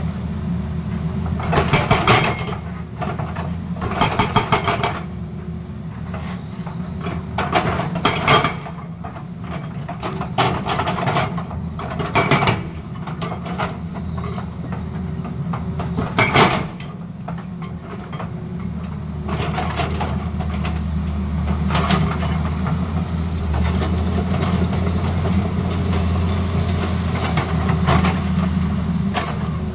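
Hydraulic rock breaker on a Tata Hitachi crawler excavator hammering rock in several short spells of rapid blows, over the steady running of the excavator's diesel engine. After the last spell of hammering, about two-thirds of the way through, only the engine is heard, running steadily.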